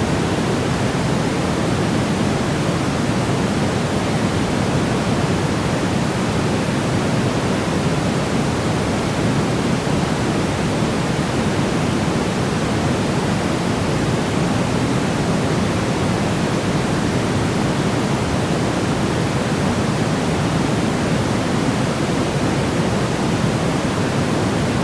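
Steady, unchanging white noise for baby sleep: an even, deep rushing hiss, fuller in the bass than in the treble.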